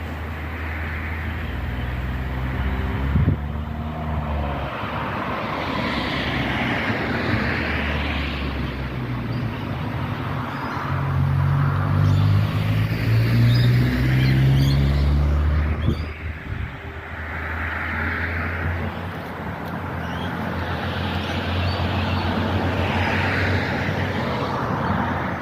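A motor vehicle's engine running, a low pitched rumble that grows louder toward the middle and drops away suddenly about sixteen seconds in, with soft higher sounds coming and going over it every few seconds.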